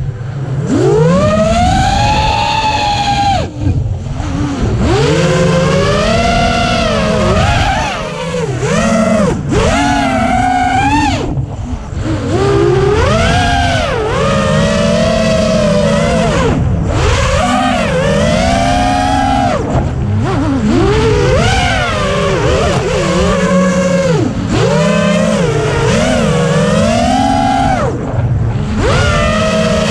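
A six-inch FPV quadcopter's Hobbywing 2405 2250kv brushless motors spinning HQ 6030 three-blade props: a whine that climbs and falls again and again with the throttle, dipping briefly every few seconds when the throttle is chopped, over a low rush of air.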